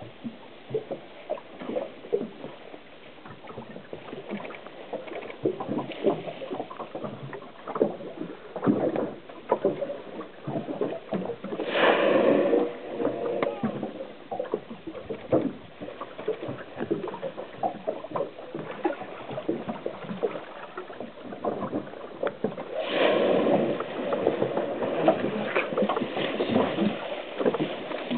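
Small waves lapping and slapping against a boat's hull throughout. Twice, about twelve seconds in and again about eleven seconds later, comes a louder rushing exhalation of about a second: a humpback whale blowing as it surfaces.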